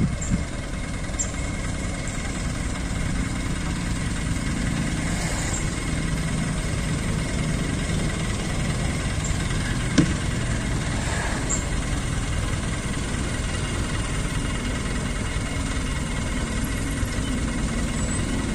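Truck engine running steadily, with a single sharp knock about ten seconds in.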